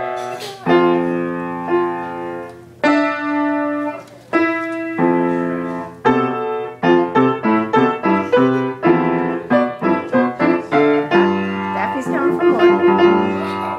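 Piano music: slow held chords, then quicker runs of notes from about seven seconds in.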